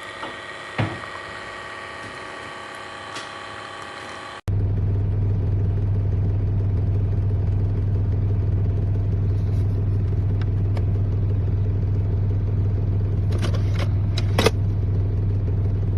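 A quieter steady whine made of several held tones, with a few clicks, cuts off suddenly about four seconds in. A much louder steady low mechanical hum starts at the same moment and runs on, with a few clicks near the end.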